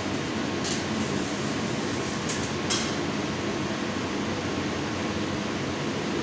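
CNC sheet-metal laser cutting machine running as it cuts a pattern of holes in a steel sheet: a steady drone and hiss, with a few brief crackles under a second in and again around two and a half seconds in.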